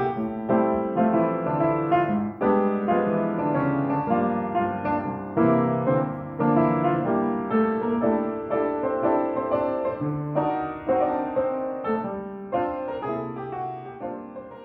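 Outro music led by piano, playing a flowing run of notes that slowly fades out toward the end.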